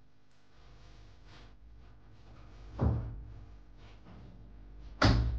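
Two heavy wooden thuds from a wardrobe door and its contents being handled, one about three seconds in and one near the end, each dying away quickly.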